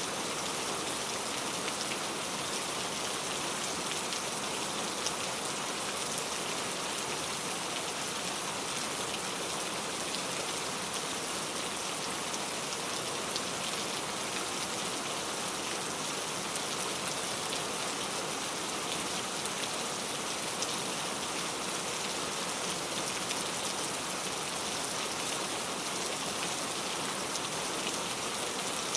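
Steady rain falling, an even hiss with fine ticks of individual drops throughout.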